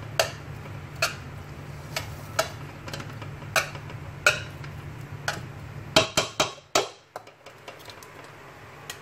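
Metal spoon knocking and scraping against a large aluminium cooking pot as cooked vegetable kudra is spread over its bottom: sharp clinks with a short ring, about one a second, then a quick cluster of knocks about six seconds in.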